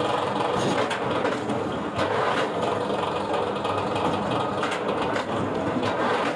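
Wood-processing machinery running steadily, with a few sharp knocks.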